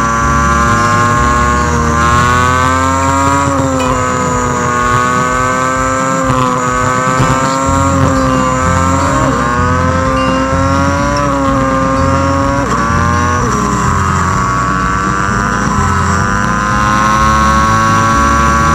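V-twin cruiser motorcycle engine running at road speed, with wind and road noise. Its pitch drifts up and drops abruptly three times as the throttle or gear changes.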